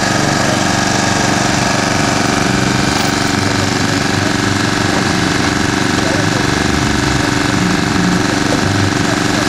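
An engine running steadily at a constant speed, giving an even hum.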